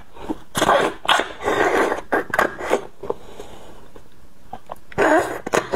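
A person slurping marrow out of a section of roasted beef bone, with long, noisy sucks in the first two seconds. A few short wet mouth clicks follow, then another short slurp near the end.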